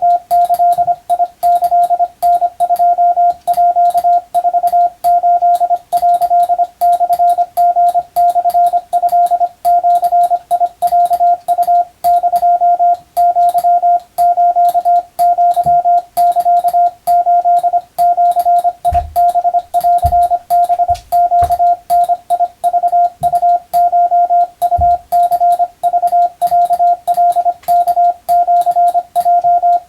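Hand-sent Morse code (CW) tone at about 700 Hz, keyed on and off in a steady run of dots and dashes. It is sending Japanese-language (wabun) telegram text as code-receiving practice.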